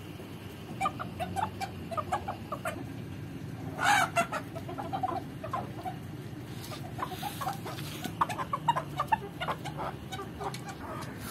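Domestic chickens clucking in quick, short, repeated calls, with a louder burst about four seconds in.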